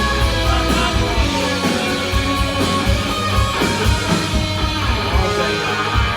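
Rock band playing live: electric guitars over bass and drums with a steady beat.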